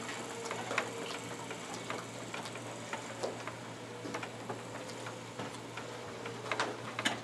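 Light handling noise near a lectern microphone: scattered, irregular clicks and taps as papers and a collection basket are moved, over a steady low hum from the sound system. A louder pair of clicks comes near the end.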